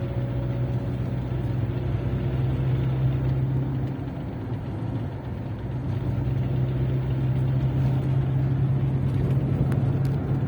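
Great Wall Hover heard from inside the cabin while driving in fourth gear: a steady engine and drivetrain hum over road noise, dipping briefly about halfway through.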